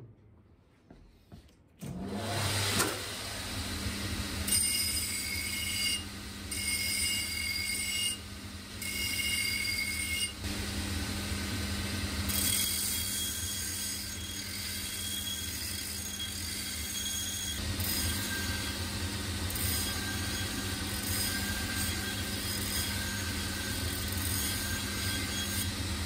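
A motor-driven abrasive-wheel machine starts up about two seconds in and runs with a steady hum. A steel axe head is ground against the wheel in repeated passes, grinding and whining, to cut a new edge on a dull, rounded blade.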